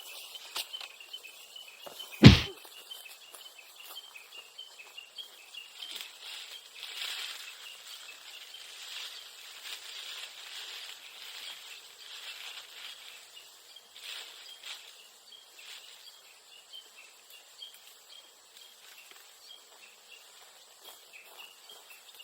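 Insects chirring steadily in a rapid pulsed trill, with one loud thump about two seconds in.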